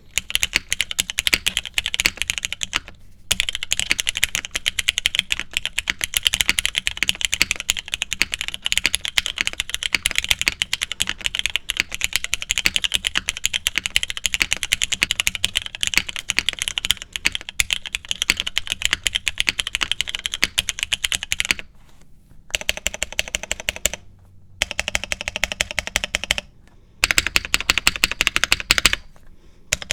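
Fast typing on a Monokei x TGR 910 v2 ME custom mechanical keyboard with lubed MX Black linear switches, PC plate, O-ring mount and GMK keycaps: a clacky keyboard. Steady rapid keystrokes with one brief pause a few seconds in, then three short bursts of fast keypresses separated by pauses in the last third.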